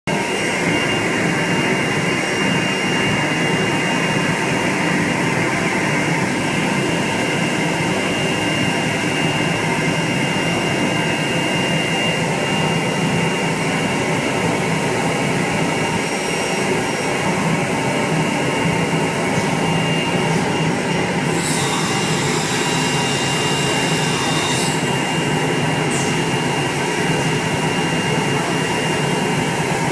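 CNC router with automatic tool changer running on wood: a loud steady drone of the spindle and cutting, with a thin steady whine above it. A few seconds of sharp hiss join in about two-thirds of the way through.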